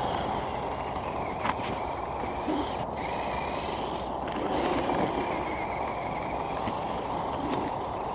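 Small electric motors of radio-controlled trail trucks whining as they crawl, the whine rising and falling in pitch, over a steady rushing noise with a few light clicks.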